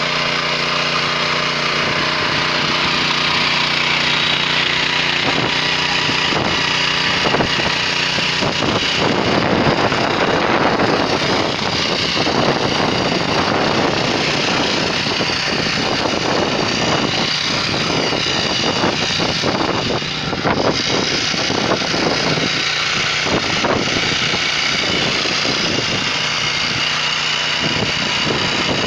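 WEIMA 1000N walk-behind tractor's 6 hp engine running steadily while its tiller cutters work through soil and mustard plants. For the first several seconds the engine note is even, then from about eight seconds in the sound turns rougher and noisier with irregular clatter, as the cutters bite under load.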